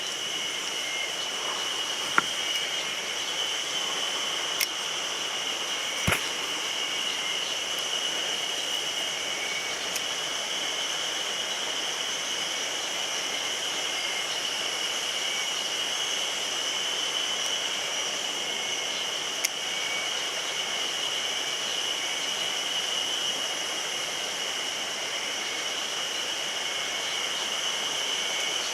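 Mountain stream rushing steadily, with a steady high-pitched drone over the water and a few sharp clicks.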